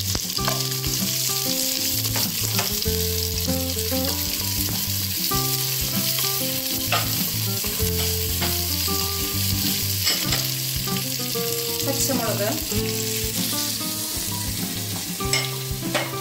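Sliced onions sizzling in hot sunflower oil and ghee in a pressure cooker pot, stirred with a wooden spatula that knocks against the pot a few times. Low held tones shift in pitch underneath.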